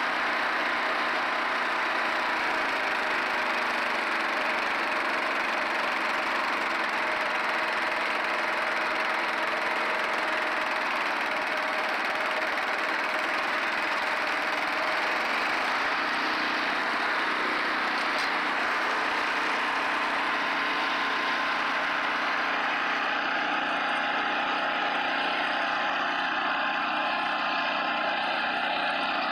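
Garden tractor with a front-mounted snowblower running steadily under load, its engine and blower throwing snow out of the chute.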